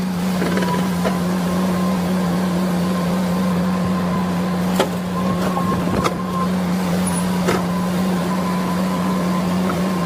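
Komatsu hydraulic excavator running with a steady low drone and a thin high whine that comes and goes, broken by three sharp clanks.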